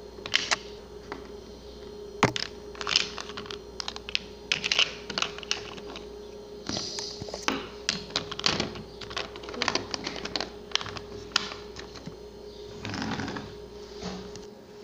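Littlest Pet Shop plastic figures and a plastic toy van handled by hand: scattered light clicks and taps, over a faint steady hum.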